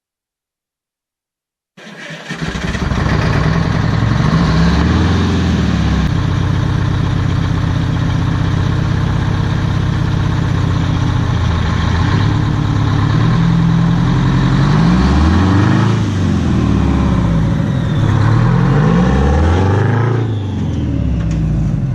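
Detroit Diesel 8V92 two-stroke V8 truck engine running loud and being revved up and back down several times. It cuts in suddenly about two seconds in.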